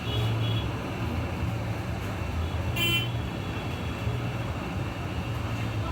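Steady low rumble of street traffic, with one short vehicle horn toot about three seconds in.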